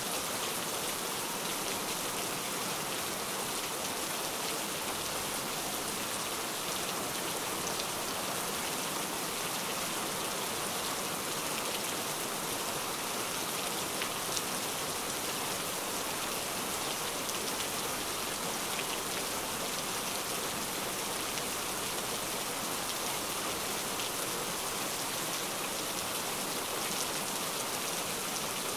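Steady rain: an even hiss of rainfall with a few scattered drop ticks.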